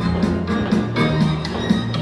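Upbeat stage-musical accompaniment with a quick steady beat, about four strokes a second.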